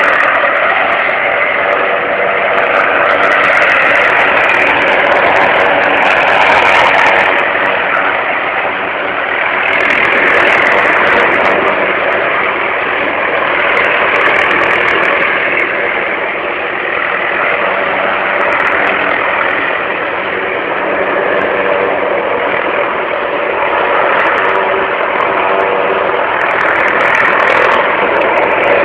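Helicopter running steadily and loud overhead, a constant engine and rotor drone that swells and eases gently every few seconds.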